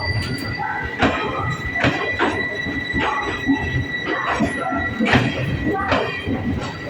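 Passenger coaches of a departing express train rolling past, the wheels knocking over rail joints roughly once a second, with a thin steady high tone through the first five seconds or so.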